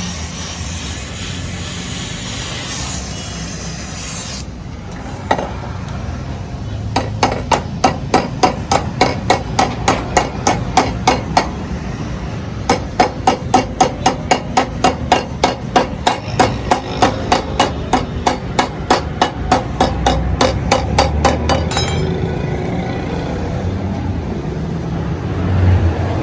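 Rapid hammer blows, about three to four a second, in two long runs with a brief pause between them, as an aftermarket exhaust is fitted onto its pipe joint. A hissing noise in the first few seconds cuts off suddenly.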